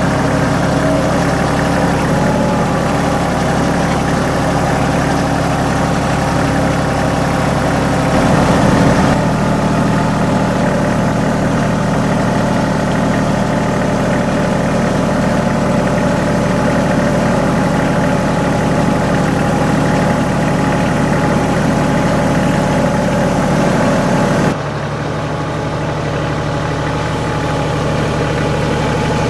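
Kubota L3010 HST compact tractor's three-cylinder diesel engine running steadily as the tractor drives, heard from the operator's seat and briefly louder about eight seconds in. Near the end the sound drops to a quieter engine heard from outside the tractor.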